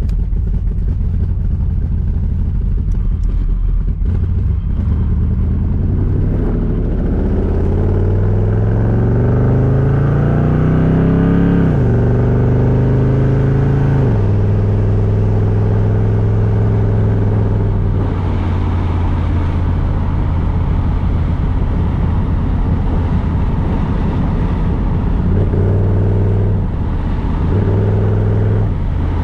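1982 Chevrolet Camaro's engine and exhaust heard from inside the cabin, pulling up through the gears with a drop in revs at a gear change about twelve seconds in and another about two seconds later, then cruising at steady revs. Two brief rises in engine speed near the end.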